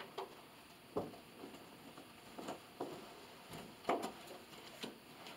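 Faint, irregular knocks and taps, about eight of them, with the loudest about four seconds in.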